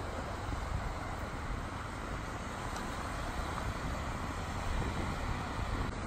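Small sea waves breaking and washing up a sandy beach in a steady surf hiss, with a low wind rumble on the microphone.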